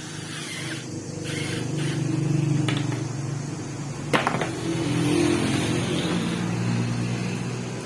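Small electric motor humming steadily, swelling louder and shifting pitch slightly, with one sharp click about four seconds in.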